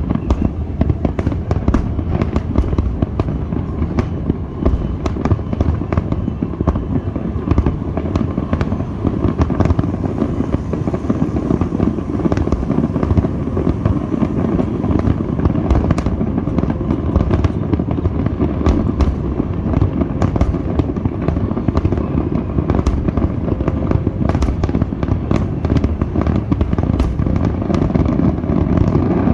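Aerial fireworks going off in a continuous barrage: a steady heavy rumble of booms with many sharp cracks scattered throughout.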